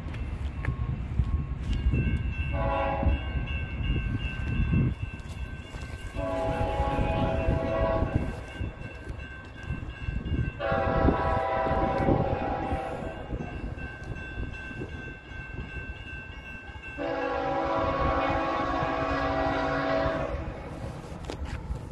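An approaching CSX freight train's locomotive air horn sounding a short blast, then three long blasts of two to three seconds each, over the low rumble of the train.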